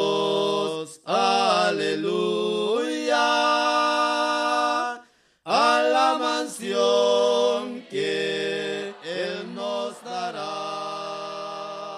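A hymn sung a cappella, with long held notes and slides between them, a short break about five seconds in, and the singing fading out near the end.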